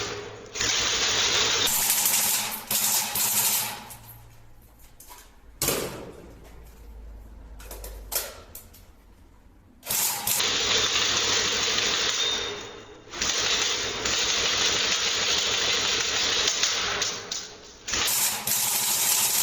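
Tokyo Marui SCAR-H electric airsoft gun firing long full-auto bursts, its gearbox cycling in a rapid rattle. There are four bursts, with a pause of several seconds after the first.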